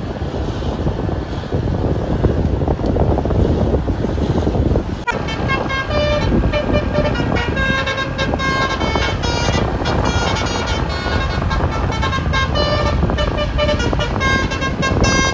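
Road traffic rumbling steadily. About five seconds in the sound changes abruptly, and many short horn toots at several different pitches then sound one after another over the traffic.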